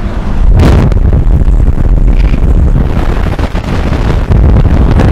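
Wind buffeting a bare TASCAM TM-ST1 stereo microphone held out of a car window at about 50 mph with no windscreen: loud, low rumbling with irregular pops that starts about half a second in.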